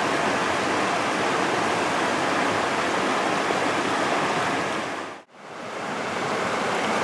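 Steady rush of a mountain river running over a riffle. It fades out to near silence a little after five seconds in and swells back up.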